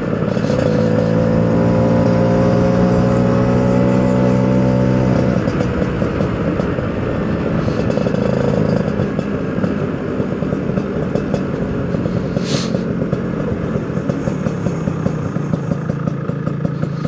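Two-stroke motorcycle engine running under load with its pitch rising slightly, then dropping to a lower, steadier note about five seconds in as it rides on.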